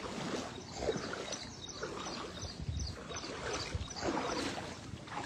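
Water sloshing and splashing, with faint voices in the background.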